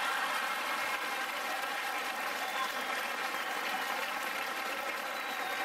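Audience applauding steadily in reaction to a comedian's punchline.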